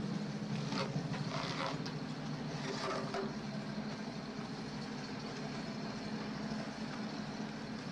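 Sanitation pump truck's engine running steadily while its vacuum hose pumps out a portable toilet, with a few brief knocks in the first three seconds.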